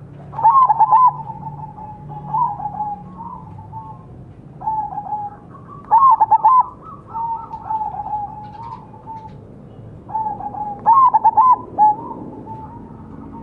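Zebra dove (perkutut) cooing: its song of quick, clipped coo notes is repeated in several phrases. The loudest bursts come about half a second in, about six seconds in, and around eleven seconds in.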